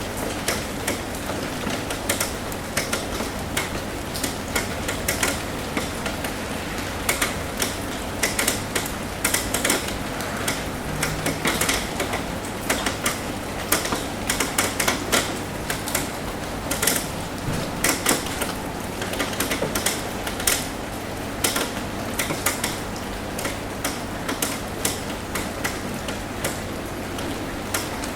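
Rain falling on a roof: a steady hiss of rain with many irregular, sharp drop taps on the roof surface, thickest midway through.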